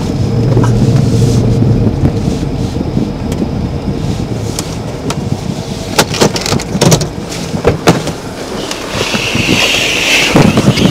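Inside a patrol car: a low engine hum, strongest in the first couple of seconds, with sharp knocks and clicks from the body-worn camera being jostled. The driver's door opens near the end.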